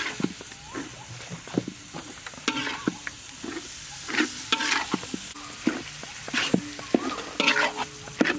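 Metal spatula scraping and clanking against a large steel wok, about twice a second, as minced meat is stirred, over a steady frying sizzle.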